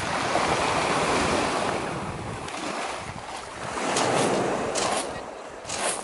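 Small waves washing up over a beach of smooth round pebbles, two rushing swells of water a couple of seconds apart, with a few sharp clatters near the end.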